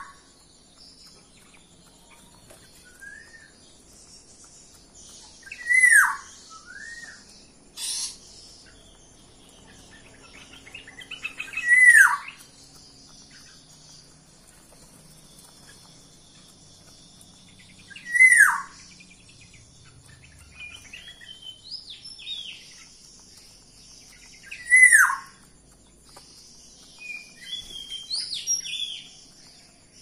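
Bird calling in an aviary: a loud note that slides downward, repeated four times about every six seconds, with softer short chirps in between.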